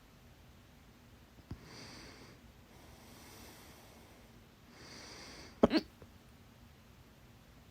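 A woman's loud hiccup about five and a half seconds in: a short pitched 'hic' with a double peak. Quiet breaths come before it, and there is a faint click about a second and a half in.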